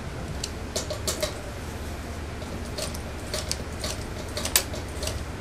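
Industrial sewing machine with a steady low hum and about a dozen sharp, irregularly spaced clicks as mink-coat fabric is stitched a little at a time and handled under the presser foot.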